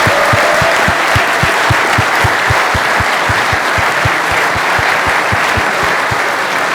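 Audience applauding steadily, with a low thud about four times a second underneath.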